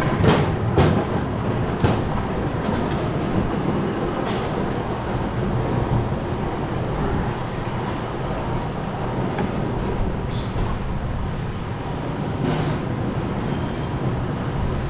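Factory machinery running steadily with a dense clatter, broken by a few sharp clanks.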